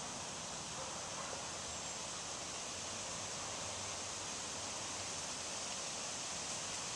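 Steady, even background hiss of outdoor ambience, with no distinct events; the slow trickle of water down the inside of the cup makes no sound that stands out.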